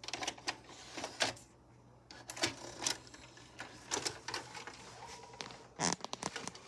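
Irregular sharp plastic clicks, knocks and rattles, typical of a VHS cassette and its case being handled. There is a loud knock about a second in and another near the end.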